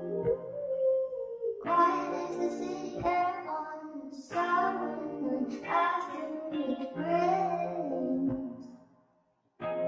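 A choir singing in phrases of a second or two each, with a low note held under some of them. The singing fades out near the end, drops to a short silence, then starts again.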